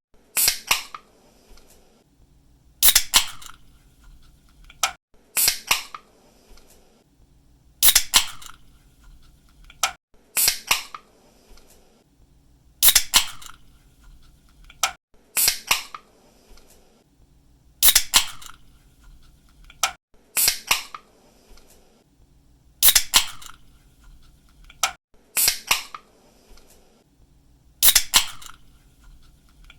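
Aluminium drink can opened by its pull tab: a quick cluster of sharp snaps as the tab cracks the seal, then a faint fizz, repeated at an even pace about every two and a half seconds.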